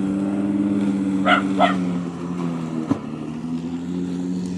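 A young dog gives two short, high yips in quick succession about a second in. A steady low mechanical hum runs underneath.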